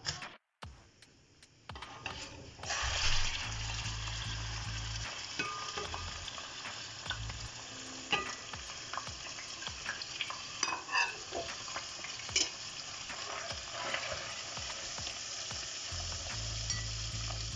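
Finely chopped meat frying in hot oil in a heavy pot: a steady sizzle that starts about three seconds in, with a few clicks and scrapes as the meat is tipped in from a plate.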